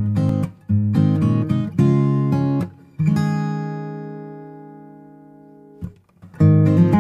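Background music of a strummed acoustic guitar playing chords. About three seconds in, one chord is left to ring and slowly fade, there is a short break, and the strumming starts again near the end.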